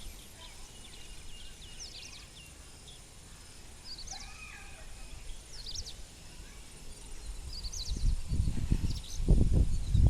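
Birds calling in short, high, falling chirps, a small cluster every second or two. Low rumbling on the microphone builds up in the last two seconds.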